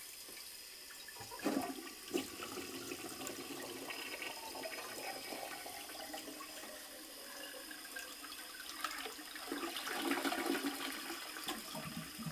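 A toilet flushing: water swirls and rushes down the bowl, growing louder near the end as the bowl empties. It drains freely, the clog having been cleared with a plunger.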